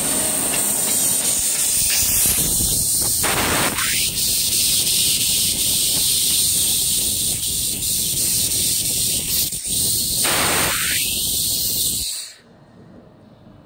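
1000 W fiber laser cutting head cutting thin metal sheet: a loud, steady hiss of assist gas at the nozzle with a constant high whine, swelling twice. It cuts off suddenly about twelve seconds in as the cut stops.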